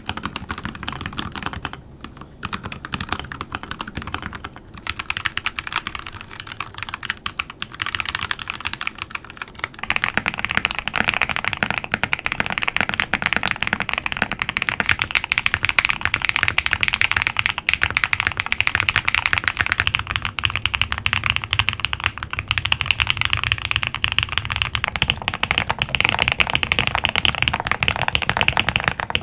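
Continuous fast typing on a series of mechanical keyboards, one after another, each for about five seconds. The order is: a DIY Void40, a DIY Dactyl Manuform split keyboard, a Tofu65 with Glorious Panda tactile switches, a Tofu60 with Zaku II tactile switches, a Neo Ergo with Boba U4T tactile switches, and an Epomaker Cidoo ABM066 with Boba U4T switches. The key sound gets louder and brighter from the Tofu65 onward, about ten seconds in.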